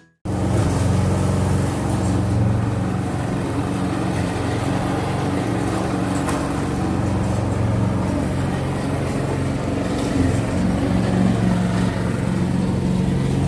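Lawnmower engine running steadily, loud, with a low droning hum.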